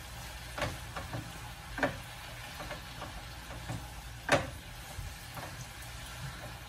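A spatula stirring Malabar spinach and potato in a frying pan over a faint steady sizzle, with a few short scrapes and taps against the pan; the sharpest knock comes about four seconds in.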